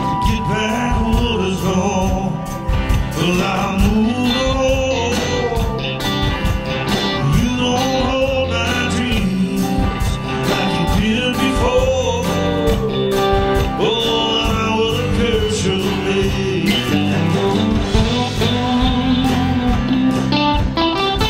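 A live band playing: a man singing over strummed acoustic guitar, electric guitar and bass guitar, with a steady beat.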